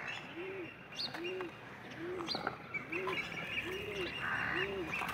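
Wild birds calling: a low rise-and-fall hoot repeated evenly a little more than once a second, with higher chirps from other birds and a few faint clicks.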